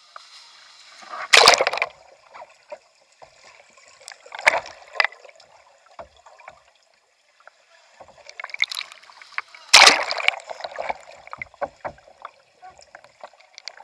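Water splashing and bubbling as a kayak capsizes and is rolled, recorded from a camera on the kayak's deck that goes under the surface. Two loud splashes come about a second and a half in and again near ten seconds, with smaller splashes, clicks and gurgling between them.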